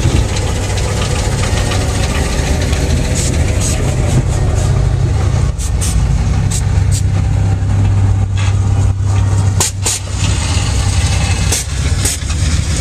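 Engines of lowered cars and mini-trucks rolling slowly past at low speed, a steady deep exhaust rumble. Several short sharp clicks come through in the second half.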